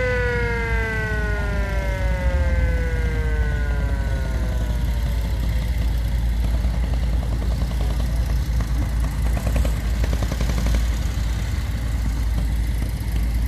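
Siren on a vintage US Army ambulance winding down, its pitch falling steadily and fading out over about four seconds. A low rumble of engine and wind lasts throughout, and later the rapid putter of a small motorcycle engine comes in.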